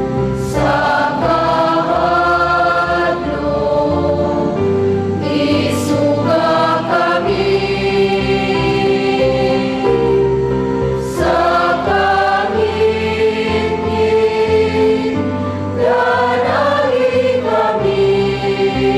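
Church choir singing a hymn over held instrumental chords and a bass line, with the voices coming to the fore four times.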